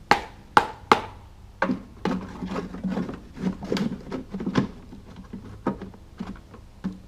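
A lawnmower's mulching insert being handled and fitted into the mower: several sharp knocks in the first two seconds, then irregular clattering and rubbing as it is worked into place.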